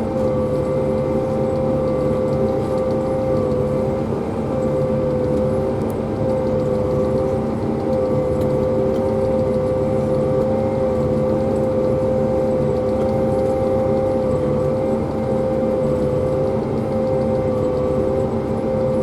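Pea viner running steadily: a continuous engine drone with a high, steady whine over it.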